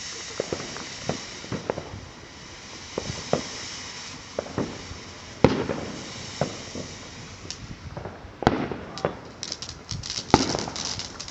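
Consumer fireworks going off: a steady hiss with scattered pops, then a few sharp bangs and dense rapid crackling in the last few seconds.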